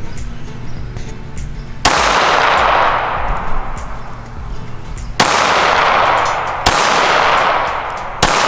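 Four pistol shots, spaced unevenly about one and a half to three and a half seconds apart, each followed by a long ringing tail that fades away. The first shot comes about two seconds in.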